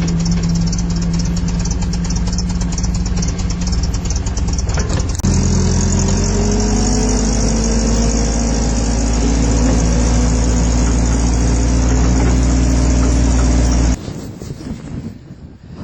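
Large forklift's engine running with a fine ticking. About five seconds in it steps up louder and the pitch climbs slowly as it is revved. It cuts off abruptly near the end.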